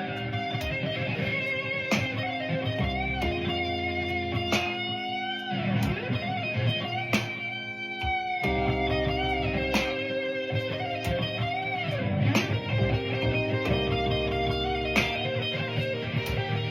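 Electric guitar playing blues lead lines with bent notes, over a steady bass line and beat.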